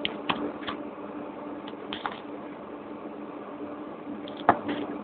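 Light scuffs and taps of feet and a football on a hard court surface, then one sharp kick of the ball about four and a half seconds in, under a faint steady hum.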